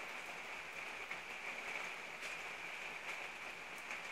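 Steady rain falling, an even patter with a few sharper single drops standing out.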